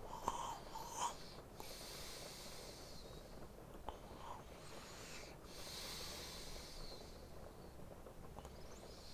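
A sleeping man breathing slowly and heavily close to the microphone, with a slight wheeze: long hissy breaths of a few seconds each, split by short pauses. A few small clicks come in the first second and near the middle.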